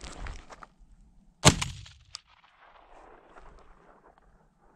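Shotgun fired once about one and a half seconds in, a sharp crack with a short fading tail, followed about half a second later by a single sharp click, and a second shot going off right at the end.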